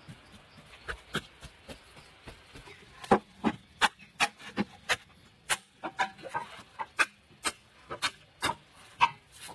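Green bamboo being chopped: a run of sharp wooden knocks, about two a second, after a few softer taps in the first seconds.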